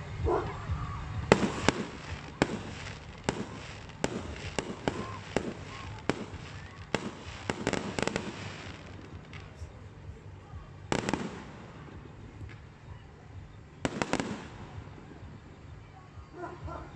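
Aerial fireworks going off: a quick run of sharp bangs and crackles for several seconds, then two louder bursts about three seconds apart near the end.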